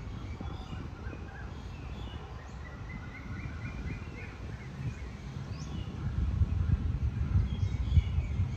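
Several birds chirping and calling, with a run of quick repeated notes a few seconds in, over a steady low rumble that grows louder after about six seconds.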